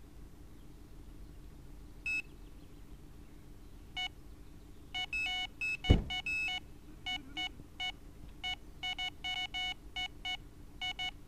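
Electronic carp bite alarm giving short beeps, one or two at first, then coming fast and irregular from about five seconds in as line is pulled through it. A single loud thump about six seconds in.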